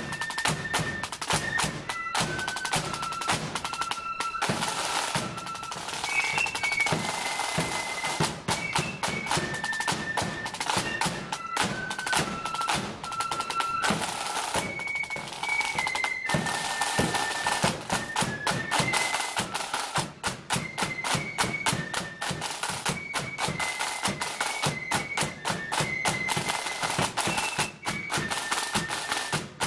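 Flute band playing a marching tune: flutes carrying the melody over rapid, dense snare drumming.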